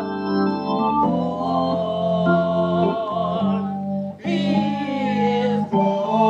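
Electronic organ playing sustained chords that change every second or so. Voices sing along briefly about four seconds in.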